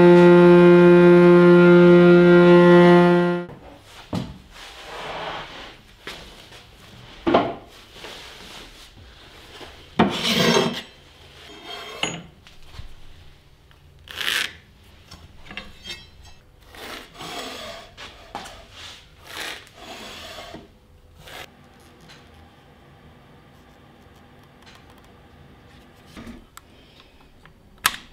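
A loud held musical note with strings cuts off about three seconds in. Then wood rubs and scrapes in irregular strokes, with some knocks, as oak boards are worked by hand. The strokes thin out in the last several seconds.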